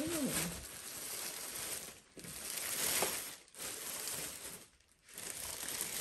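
Clear plastic wrap crinkling and rustling as it is handled and pulled off, in three or four long stretches with brief pauses between them.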